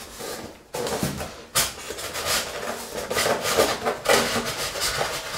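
Polystyrene foam packaging end cap being worked loose and pulled off the top of a cloth-wrapped iMac: foam rubbing and scraping in irregular bursts, with the cloth rustling.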